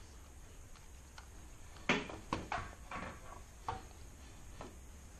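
About half a dozen short clicks and knocks from a camcorder being handled and adjusted on a tripod's pan-and-tilt head, starting about two seconds in.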